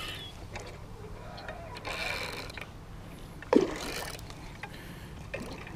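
A hooked carp splashing and thrashing at the water's edge as it is played in on rod and reel, in a few separate bursts, the biggest about two seconds in and again about three and a half seconds in.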